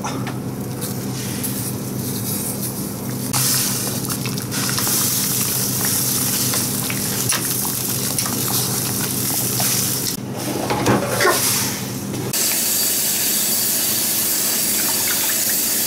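A large pot of water bubbling at the boil on a gas burner over a steady low hum, with sturgeon head pieces being pushed about and splashing in it. About twelve seconds in there is a sudden change to a kitchen tap sprayer running steadily into a pot in the sink as the pieces are rinsed.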